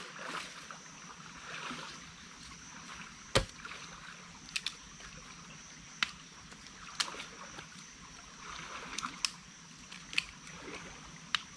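Rustling and crackling in dry forest undergrowth, with scattered sharp snaps and cracks; the loudest crack comes about three and a half seconds in. A faint, steady high-pitched tone runs underneath.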